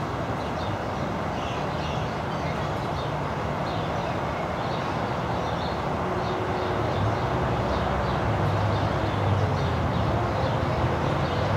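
Steady outdoor background noise: a low rumble with a constant hiss, slightly louder in the second half, with faint high chirps now and then.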